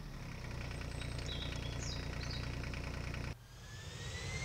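A large motorhome's engine running steadily with an even low throb, a few bird chirps over it. About three seconds in it cuts off sharply and a jet airliner's engine whine starts, rising in pitch as it spools up.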